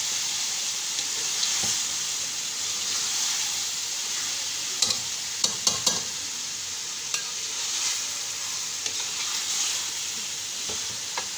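Pieces of pressure-cooked beef sizzling in hot oil with fried onions and masala in a pan as they are stirred and turned with a metal slotted spoon: the bhuna (browning) stage of beef pulao. A steady sizzle, with a few sharp clicks of the spoon against the pan around the middle.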